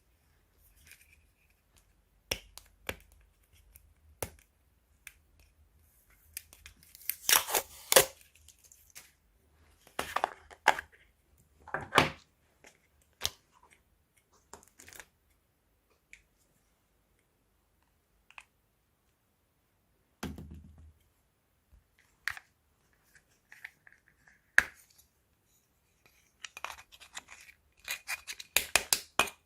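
Crunchy slime being pressed and stretched by hand, giving sharp crackles and pops that come in clusters with quiet gaps between.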